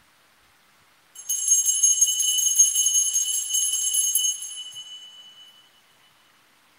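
Altar bells, a cluster of small sanctus bells, shaken rapidly for about three seconds starting about a second in, then left to ring out and fade. They are rung at the communion of the Mass.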